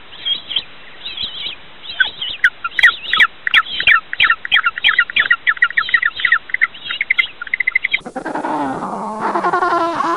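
A fast run of short, high bird chirps, several a second, for about six seconds. About eight seconds in it gives way to a penguin's harsh, pitched braying call that rises and falls.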